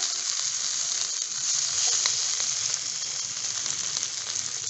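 Beef chop sizzling in olive oil and butter in a ridged grill pan: a steady frying hiss with a few small pops, just after it was turned onto its second side.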